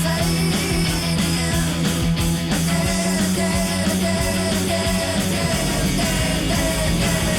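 Loud hard rock music with a steady drum beat.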